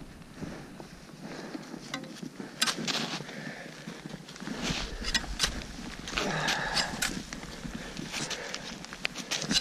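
Crampons kicking into frozen snow on a steep descent: irregular sharp impacts, some in quick clusters.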